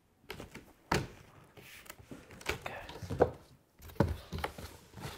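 Unboxing sounds: cardboard box, foam packing inserts and a plastic bag being handled, with rustling and several sharp thunks, the loudest about a second in and again around three to four seconds in.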